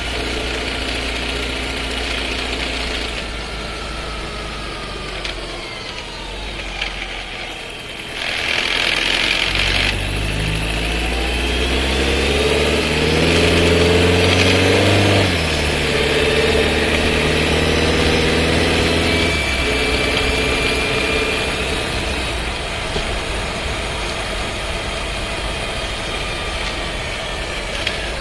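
Skoda Scala 1.5 TSI heard from inside the cabin, with its DQ200 dry-clutch DSG gearbox. A few seconds in, the engine note falls through a loud downshift with rattling. The engine then climbs in pitch under acceleration, drops sharply at a gear change about halfway, and drops again a few seconds later. The owner takes the harsh shifting and rattle for a fault in the new car's dry-clutch transmission.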